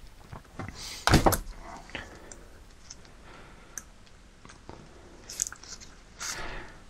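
Hand-work noises from fitting a wire snap ring over the dust seal on a brake caliper piston: a few small clicks and rustles, the loudest a short cluster of knocks about a second in.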